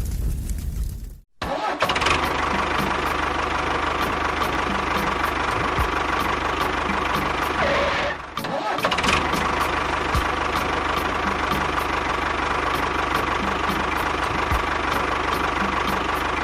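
A motor running steadily, broken by two abrupt dropouts, one about a second in and one about eight seconds in.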